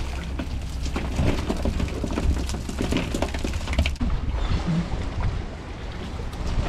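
Water splashing and dripping off a cast net full of live herring as it is hauled up out of the water, a dense crackling spatter.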